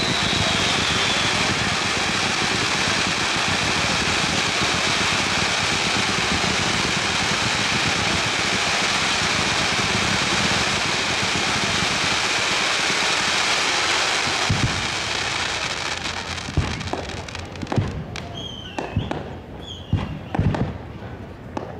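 Fireworks display going off: a dense, unbroken wash of bursts and crackle for about fourteen seconds, then thinning to separate bangs of shells bursting.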